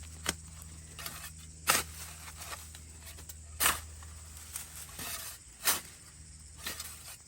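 Four short scuffing noises, about two seconds apart, over a steady low hum.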